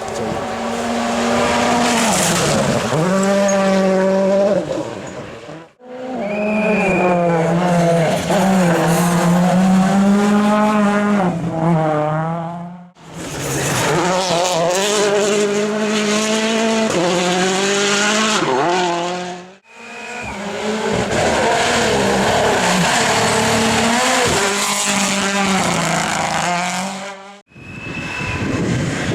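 Rally cars at full speed, their engines revving up and down through gear changes with some tyre noise, in several separate passes joined by abrupt cuts.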